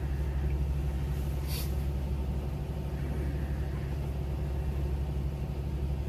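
Blue Bird school bus engine idling steadily, heard inside the cab, while the air compressor builds brake pressure back up toward the 120 psi governor cut-out. A short hiss comes about a second and a half in.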